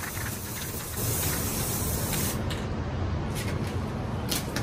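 Aerosol can of Rust-Oleum 2X Ultra Cover spray paint and primer hissing as paint is sprayed. One long spray grows louder about a second in, then shorter bursts follow near the end.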